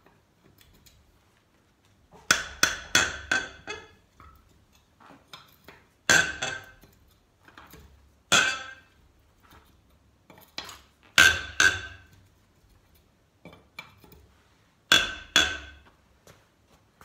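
Wheel wrench clinking against the lug nuts of a truck's steel wheel as it is fitted onto each nut and turned to loosen it: about five short bursts of sharp metallic clinks with quiet handling between.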